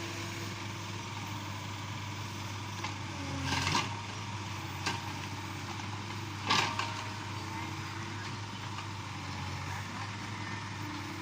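Backhoe loader's diesel engine running steadily, with two brief louder noises a few seconds apart; the second, just past the middle, is the loudest.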